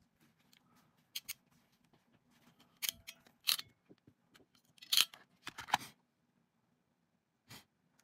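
Hanrro SN-28B ratcheting crimping tool being squeezed to crimp a Dupont terminal onto a wire and then opened, giving a handful of sharp metallic clicks in short groups. The loudest come about three and five seconds in.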